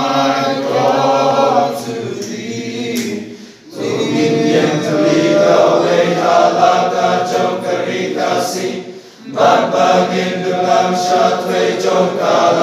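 Male choir singing together, pausing briefly between phrases about four and nine seconds in.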